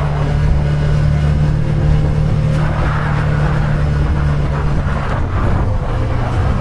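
Side-by-side UTV engine running steadily under way, with a hiss of tyre and wind noise. The engine note dips briefly about five seconds in, then picks back up.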